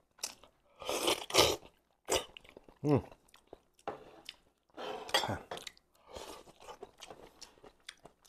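Close-miked eating sounds: a man sucking and chewing a mouthful of braised chicken head with rice. There are loud wet slurping bursts about a second in and again near five seconds, a short voiced sound near three seconds, then a run of small smacking chews.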